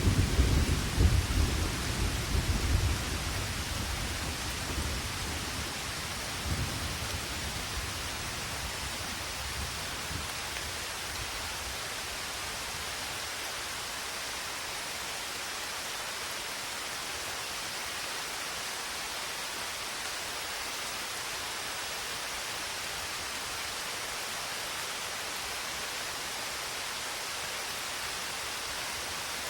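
Thunder rumbling and fading away over the first few seconds, with a brief smaller rumble about six seconds in, over the steady hiss of heavy rain.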